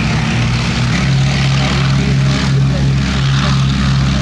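Bristol Mercury radial piston engine of a propeller aircraft running steadily, a single held pitch that grows louder about a second in.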